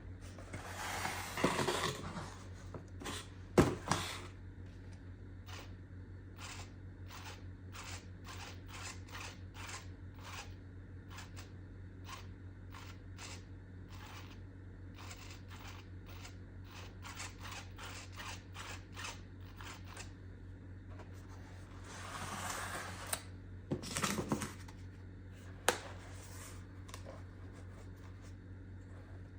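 Scissors cutting cardboard: a steady run of short snips, about two a second, with louder rustling and a few sharp knocks near the start and again near the end.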